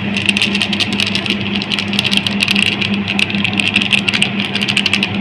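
A steady machine-like hum with a crackly hiss, unchanging throughout.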